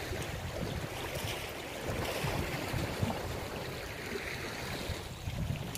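Sea waves washing against a rocky shore, with wind gusting on the microphone in uneven low rumbles.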